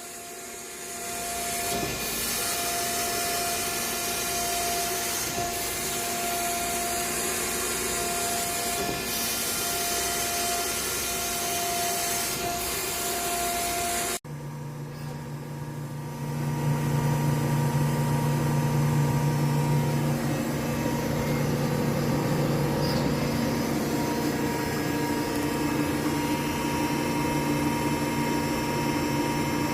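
Industrial grinding machines running: a continuous grinding hiss over a steady motor hum. About halfway through the sound cuts abruptly to a second machine with a deeper, stronger hum.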